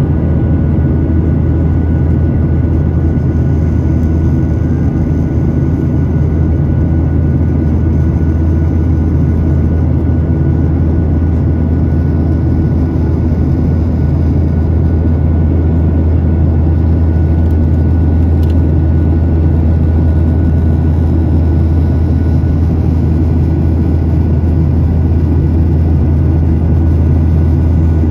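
Cabin noise of a Boeing 737-8 MAX climbing after takeoff: its CFM LEAP-1B turbofan engines running steadily, a loud deep drone with rushing air noise and faint steady high tones above it.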